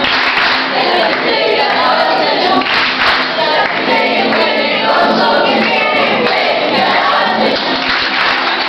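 A large group of young people singing a song together in chorus, steady and loud throughout.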